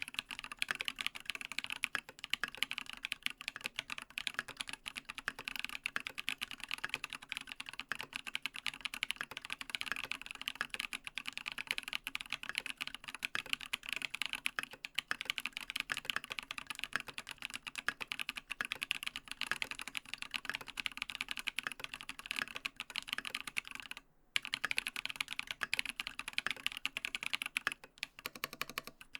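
Steady, fast typing on a TX87SE mechanical keyboard with lubed Holy Panda tactile switches in a brass plate and MT3 Dev/tty keycaps. The keystrokes run in dense, quick clatter with one short pause late on.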